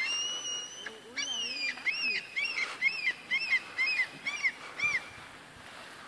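A series of high animal calls: one long held note, a falling note just after a second in, then about seven short arched notes at roughly two a second, stopping about five seconds in.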